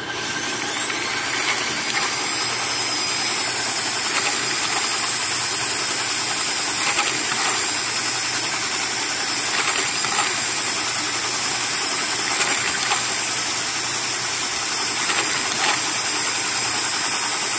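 Motor-driven grinding wheel in a homemade lathe jig spinning up with a rising high whine, then running steadily with a grinding hiss and a few light ticks as it grinds a hard-rod weld on a diesel camshaft lobe back to shape.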